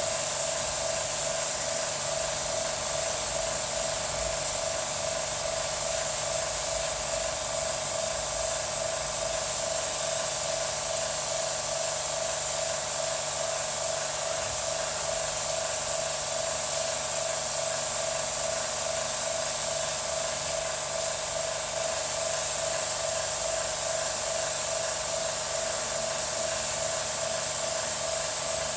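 A motor-driven machine running steadily, with a high-pitched whine over a fast, even pulsing hum that does not change.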